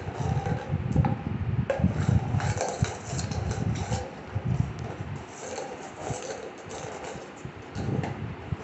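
A dog chewing and licking at a small cardboard ice cream cup held in a person's hand, with irregular rubbing, scraping and soft knocks.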